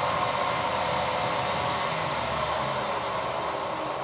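Milling machine running in reverse on its inverter-fed three-phase motor and belt drive: a steady, quiet whirr with the belts running true. It eases down near the end as the motor speed is turned down on the inverter.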